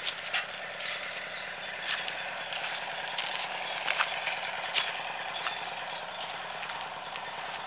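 A steady, high-pitched chorus of insects, with scattered light clicks and taps.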